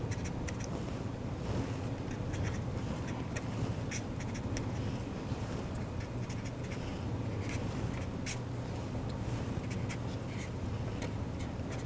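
Marker pen writing on paper in short, separate strokes, over a steady low hum.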